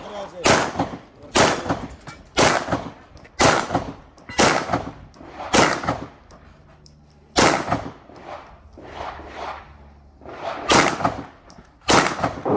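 Heckler & Koch VP9L 9 mm pistol fired in a string of aimed shots, roughly one a second, with a short pause about six seconds in and some quieter shots between eight and ten seconds in.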